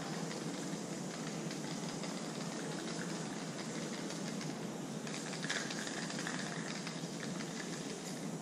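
Aerosol spray-paint cans hissing in short bursts on a metal shutter, over a steady background noise of the street.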